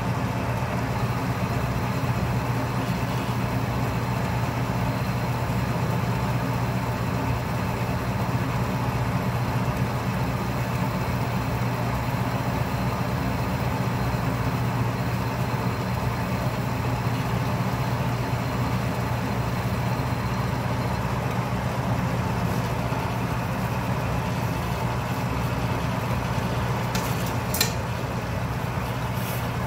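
Atlas metal lathe running steadily, its motor and drive giving a constant hum. A faint high whine stops about two-thirds of the way through, and there are a couple of sharp clicks near the end.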